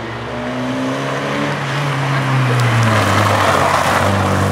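Hatchback race car's engine revving hard, climbing in pitch, then dropping as the driver lifts off about two seconds in, with tyres scrubbing as the car turns in the second half.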